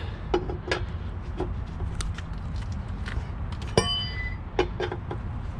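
Metal hand tools, a wrench and sockets, clinking and knocking as they are tried on the wheel's lug nuts, with one ringing metal clang about four seconds in, over a steady low background rumble.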